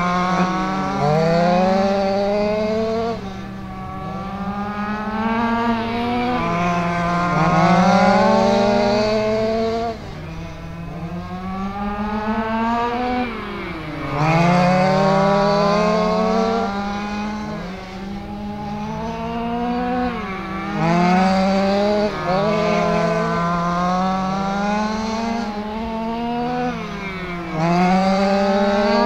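Quarter-scale RC sprint cars racing on an oval, their small engines rising in pitch along the straights and dropping off into the turns, lap after lap, with several cars overlapping.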